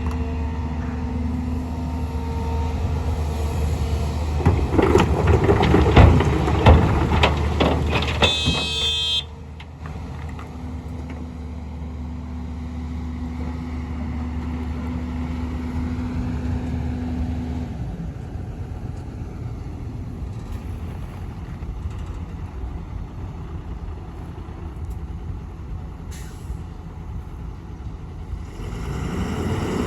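Heavy diesel machinery running steadily, with a clattering burst of stone rattling and banging from about 4 to 9 seconds, consistent with rock being loaded, and a brief high-pitched squeal at its end. The sound then drops suddenly to a quieter, steady engine hum that grows louder again near the end.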